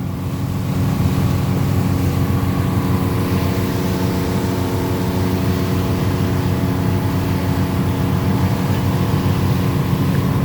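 Engine of a party fishing boat under way, a steady, even drone with no change in speed.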